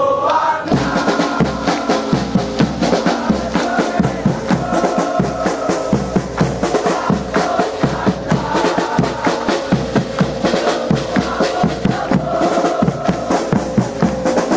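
Supporters' marching drums, bass and snare, beating a fast, steady rhythm, with a group of voices chanting along.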